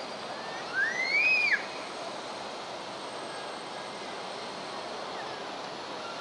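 Railway station and city background noise, steady throughout, with one loud high whistle-like tone that rises, holds and falls about a second in.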